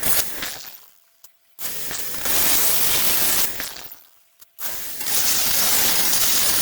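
A handheld electric power tool, such as a grinder or sander, switched on in repeated bursts of two to three seconds. Each burst starts suddenly, rises to full speed and then winds down as it is released.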